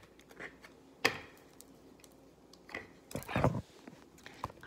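Handling noise from a phone being swung about in the hand: scattered light clicks and rubs, with a short breathy whisper about three seconds in.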